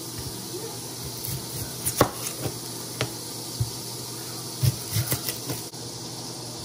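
Chef's knife cutting and trimming a yellow onion on a plastic cutting board, with a scattering of irregular sharp knocks as the blade meets the board.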